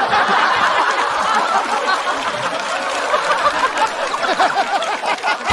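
Studio audience laughing loudly together, many voices at once.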